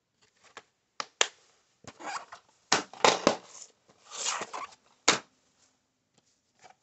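Plastic DVD cases being handled: a run of sharp clicks, clacks and rustles over about four seconds, then a few faint clicks near the end.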